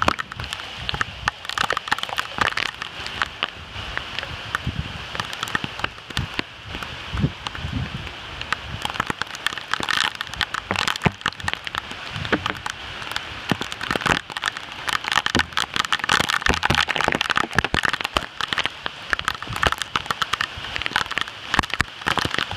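Heavy thunderstorm rain pouring down, a dense steady spatter crackling with the sharp ticks of drops hitting close by.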